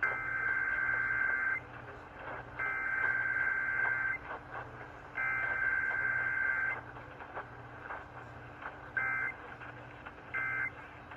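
Emergency Alert System SAME digital data tones on a radio broadcast: three long bursts of two-tone data, each about one and a half seconds, about a second apart. The header bursts carry the coded required weekly test. Near the end come two short bursts of the same tones, the end-of-message code.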